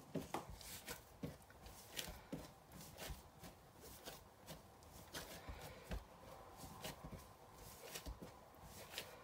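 Hands kneading samosa pastry dough on a silicone baking mat: faint, irregular soft pats and thuds as the dough is pushed and folded.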